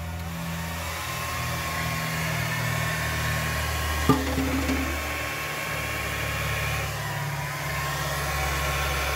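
Revlon handheld hair dryer running steadily on its cool setting, a fan whoosh with a thin motor whine. A single sharp knock about four seconds in, and the whine sags briefly in pitch near the end.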